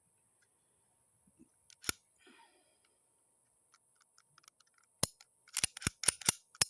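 Sharp metal clicks from a Hi-Point pistol being put back together by hand: a single click about two seconds in, then a quick run of clicks and clacks near the end.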